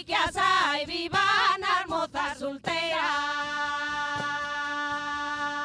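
Women singing a folk song. About halfway through, the melody gives way to one long, steady held note.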